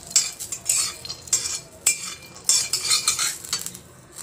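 A flat metal spatula scraping and stirring peanuts around a steel wok as they roast. It goes in repeated short strokes, about two a second, metal on metal with the nuts rolling across the pan.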